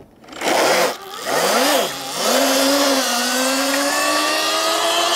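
Sur-Ron Ultra Bee electric dirt bike pulling away hard under full power from its TORP TC1000 controller. A short hiss at the launch gives way to an electric motor whine that rises, dips briefly and then climbs steadily as the bike gathers speed.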